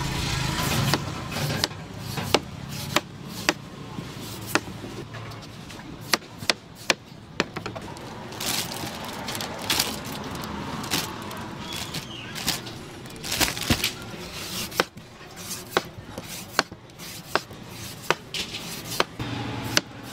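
Knife blade knocking on a cutting board as a peeled green mango is sliced into wedges, in sharp irregular strokes about one to two a second. A plastic bag rustles a couple of times as the slices go into it.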